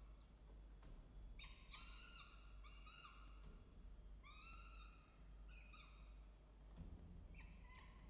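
Peregrine falcon chicks giving a run of short, thin begging calls, about a dozen in quick clusters, while being fed. There is a soft bump near the end.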